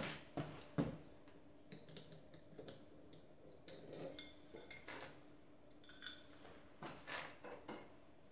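Scattered light metallic clinks and knocks as parts of a homemade five-cylinder radial engine are handled during disassembly, with a sharper knock at the start and another just under a second in.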